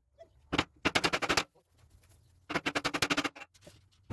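Sharp knocks on wood during woodworking: one knock, then two rapid runs of about a dozen knocks a second, each lasting under a second.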